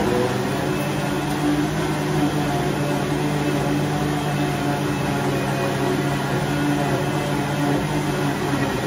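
Klarstein high-speed countertop blender running steadily at full speed, blending soaked dates and water into a smoothie base.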